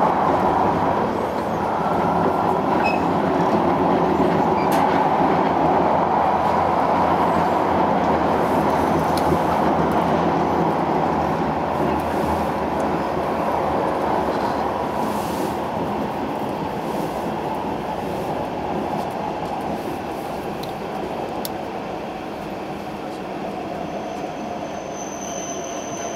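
E5-series Shinkansen heard from inside the car while braking into a station: the running noise is loud at first and fades as the train slows. Near the end the high-pitched brake squeal comes through as a tone that slowly falls in pitch, with a thin high whine above it.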